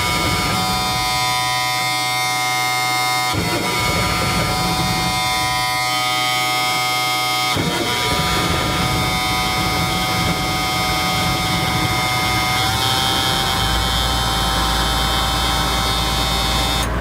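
Cold start of an M35A2-series truck's multifuel diesel engine: the starter motor cranks it in a long, steady grind that shifts pitch a few times, until a deep steady engine rumble comes in about three seconds before the end as the engine catches and runs.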